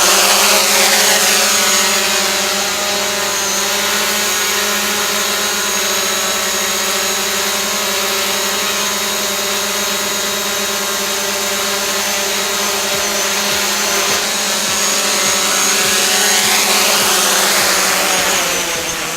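DJI Mavic Pro quadcopter flying on its standard propellers: a loud, steady buzzing hum with a high whine above it. It dies away near the end.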